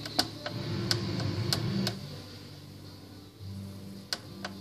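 Irregular sharp clicks, several in the first two seconds and two more near the end, over a faint low background hum.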